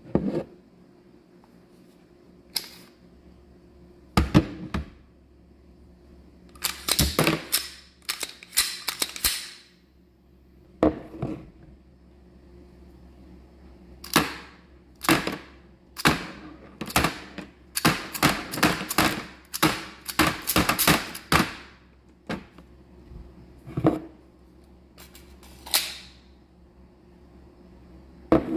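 A handgun being handled: repeated sharp metallic clicks and clacks in irregular clusters, like a slide being worked and a magazine being seated, with short quiet gaps between runs.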